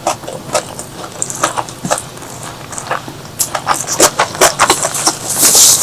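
A person chewing food close to the microphone, with many quick wet smacking clicks and a louder hissing burst near the end.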